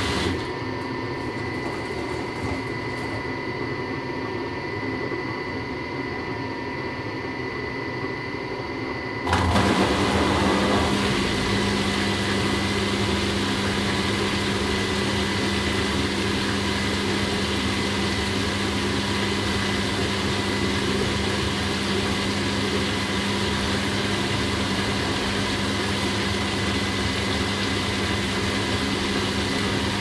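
Household washing machine running. About nine seconds in its motor kicks in louder with a steady low hum, and the machine then runs on evenly.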